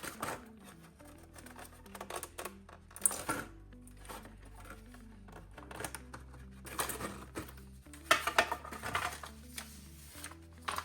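Background music with low held notes, over scattered clicks and light rattles of servo wires and plastic parts being handled, in clusters about three seconds in and again near the end.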